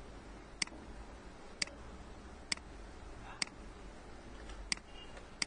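Computer mouse button clicking sharply, about once a second at uneven spacing, over a faint steady low hum.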